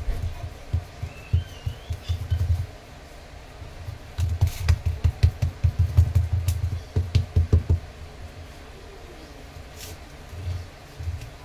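Hands patting and pressing a soft burfi dough flat in a steel plate on a counter: a quick run of dull, low thumps that pauses for about a second a few seconds in, then picks up again, with a couple more near the end.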